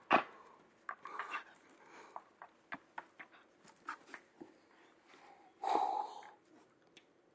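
A cat's paw and nose knocking and tapping on window glass: one sharp knock just after the start, then scattered light clicks, and a short louder noise about six seconds in.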